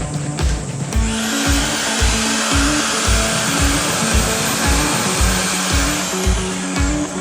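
Background electronic music with a steady kick drum about twice a second. A noise sweep rises about a second in and falls away again near the end.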